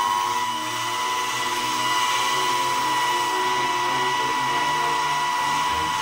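Small electric food processor running steadily, its motor giving a high, even whine.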